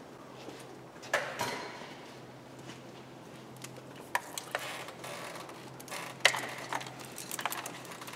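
Gloved hands working on wiring and plastic connectors in a car's engine bay: scattered light clicks and knocks, about seven over the stretch, over a faint steady low hum.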